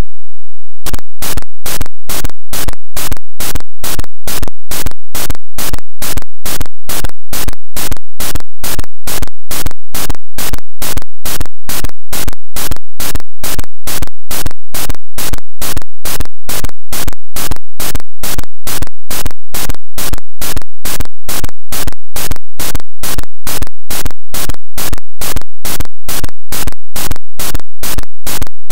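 ZX Spectrum beeper driven by a 4-byte intro's two OUT instructions to port 0xFE, giving a loud, harsh pulsing noise. It starts about a second in and pulses evenly, roughly two to three times a second.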